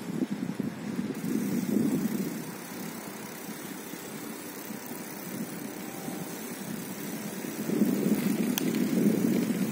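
Outdoor street ambience: a low rumble that swells about two seconds in and again near the end.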